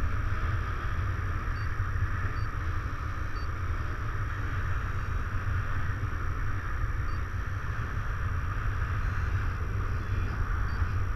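Wind rushing over the camera microphone in paraglider flight: a steady, buffeting low rumble with an airy hiss on top.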